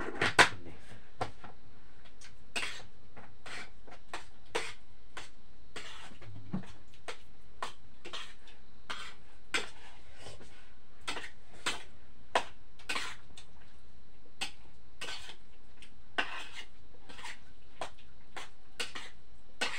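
Spoon and plates clinking and scraping during a meal: irregular sharp clicks about once or twice a second, with a louder knock right at the start.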